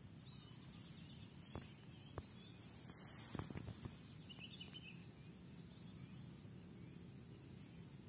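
Faint outdoor grassland ambience with a steady high-pitched insect drone, broken by a few soft ticks and a brief rustle about three seconds in.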